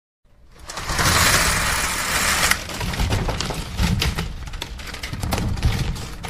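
Logo-reveal sound effect. A noisy whoosh swells up about half a second in, then gives way to a low rumble scattered with crackling clicks that fades toward the end.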